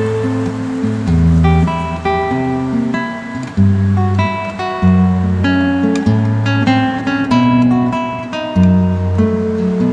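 Background music: acoustic guitar playing a plucked and strummed tune over steady, changing bass notes.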